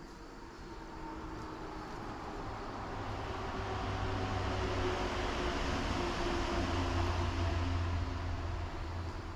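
A passing motor vehicle: a low rumble and rushing noise that grows louder over several seconds and fades near the end.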